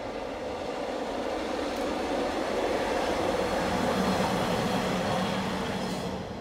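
A Class 142 Pacer two-car diesel railbus passes close by. Its underfloor diesel engines and wheels on the rails grow louder to a peak about four seconds in, then fall away sharply near the end as the last car goes by.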